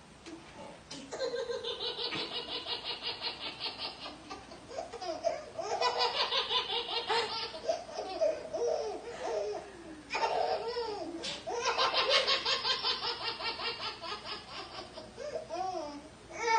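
A baby laughing hard in long bouts of rapid, rhythmic belly laughs, about four of them, with lower, wavering voice sounds in the short gaps between bouts.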